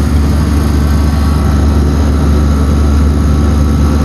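Commercial refrigeration condensing unit running steadily: a loud, even hum from the compressor and condenser fan as the system is pumped down, the compressor drawing the liquid line's refrigerant into the suction side.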